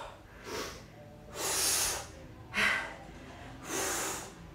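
A woman breathing hard from exertion during a bodyweight exercise: about four loud breaths in and out, roughly one a second, the strongest about a second and a half in.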